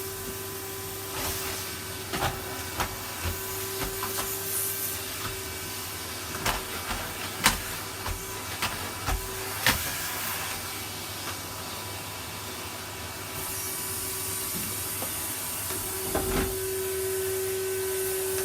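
Henry cylinder vacuum cleaner running steadily on a carpet, a hiss of air over a constant motor hum, with sharp knocks of the nozzle and wand against the floor and furniture scattered through the first half.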